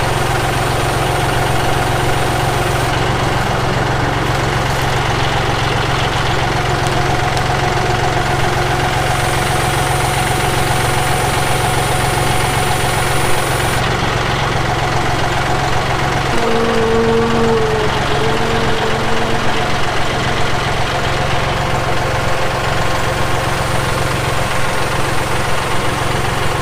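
John Deere 5055E tractor's diesel engine running steadily at low revs while it lifts and moves the sawmill. About two-thirds of the way through the engine note changes and a higher whine sounds twice briefly.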